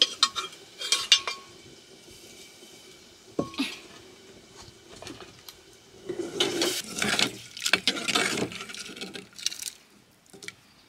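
Metal spoon clinking against a small metal pot, a few sharp ringing taps in the first second and a single knock a few seconds in, then a longer stretch of scraping and stirring around the inside of the pot in the second half.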